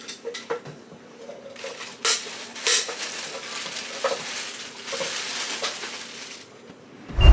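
Plastic shopping bag rustling and crinkling while items are pulled out of it and set down with light knocks and clinks, followed near the end by one loud low thump.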